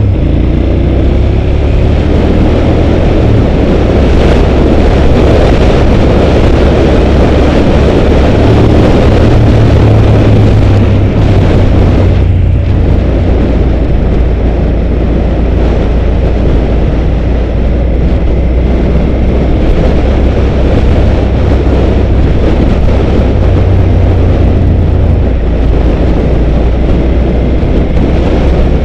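2005 Suzuki SV650's 645 cc V-twin engine running while riding at speed, heavy wind rushing over the microphone. The engine pitch rises briefly in the first couple of seconds.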